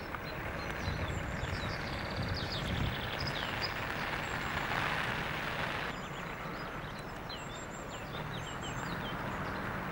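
Outdoor ambience: small birds chirping and twittering over a steady background noise, the background easing slightly about six seconds in.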